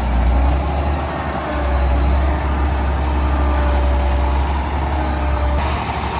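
Heavy diesel earthmoving machinery running steadily with a deep engine rumble.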